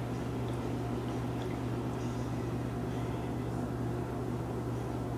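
Steady low hum of room machinery, with faint swishing as a pH meter is stirred in a bucket of wastewater.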